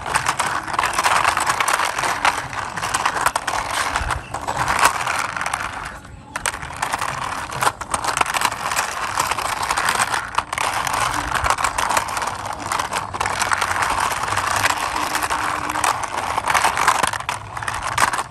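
Plastic wheels of a toy racing car rolling and scraping along a rough wall surface as it is pushed by hand, a continuous gritty rumble that breaks off briefly about six seconds in.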